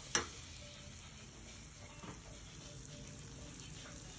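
Faint steady room hiss, with one sharp click just after the start and a small tick about two seconds in.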